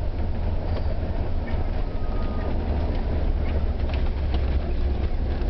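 Steady low rumble of a bus running along a paved highway, engine and tyre noise heard from inside the cabin.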